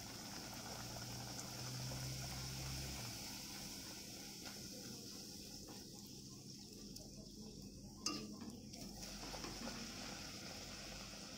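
Faint sizzle of a luchi deep-frying in hot oil in a karahi, with one brief knock about eight seconds in.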